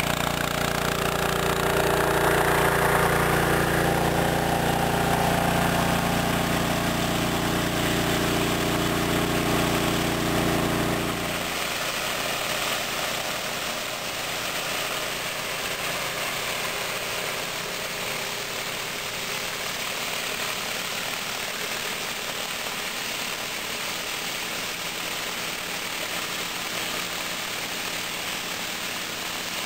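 A pressure washer's engine running steadily. About eleven seconds in, the engine's low drone drops away abruptly to a steady hiss of water spray, with the engine faint beneath, as a rotary flat surface cleaner scrubs a concrete driveway.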